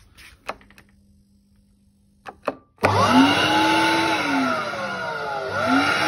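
Kärcher vacuum cleaner's motor switched on about three seconds in, after a few light clicks, spinning up with a loud rising whine. The whine sags and then climbs again near the end.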